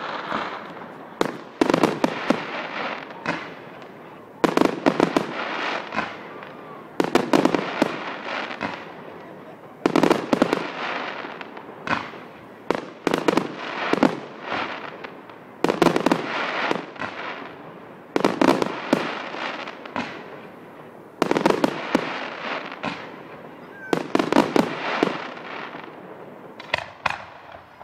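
Aerial fireworks shells bursting in a steady run of volleys, about one every two and a half to three seconds. Each volley is a quick cluster of sharp bangs with a fading tail after it.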